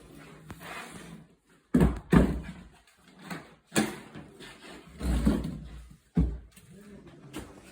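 A series of heavy thuds and knocks from renovation work, about six irregularly spaced impacts, one in the middle lasting about half a second.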